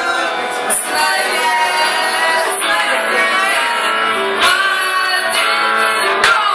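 Live performance: a woman singing while strumming an acoustic guitar, accompanied by an electric guitar.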